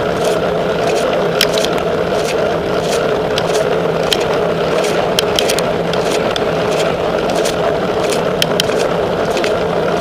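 Riding noise on a camera mounted on a bicycle rolling along a paved road: a loud, steady rush of wind and road with many irregular sharp clicks and rattles.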